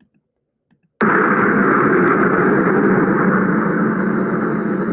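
Near silence for about a second, then a loud, steady rushing noise starts abruptly as the audio-drama recording begins to play.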